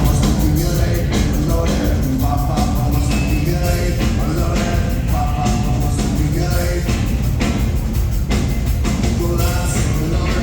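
A rock band playing live, loud and steady, with a heavy low end under layered melodic parts.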